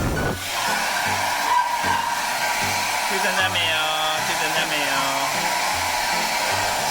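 Handheld hair dryer blowing steadily while drying a freshly shampooed dog's coat.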